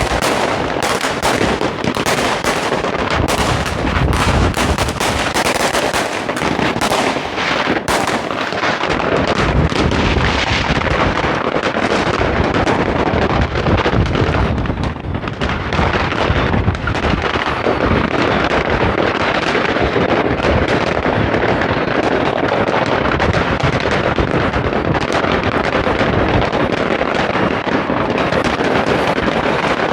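Dense, continuous crackling and banging of many fireworks and firecrackers going off at once, with rapid strings of cracks and deeper booms overlapping.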